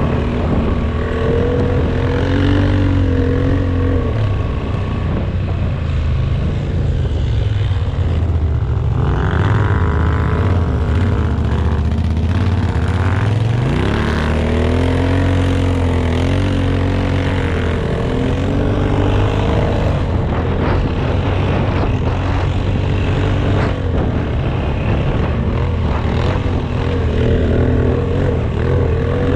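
ATV engine running under load, its pitch rising and falling again and again as the throttle is worked through snow, with a steady low rumble underneath and a sharp rise about fourteen seconds in.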